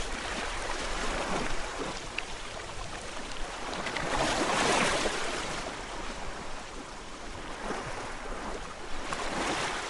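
Gentle sea waves washing in, the rush swelling to a peak about halfway through and rising again near the end.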